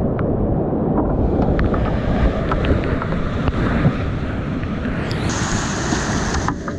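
Loud whitewater rapids rushing and churning around a kayak as it runs the drop, with water splashing on the helmet camera and scattered sharp clicks. A thin, high, steady whine joins the rush about five seconds in and stops shortly before the end.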